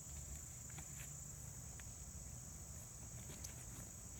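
Steady, faint chorus of crickets: a continuous high-pitched trill, with a low rumble and a few soft clicks beneath it.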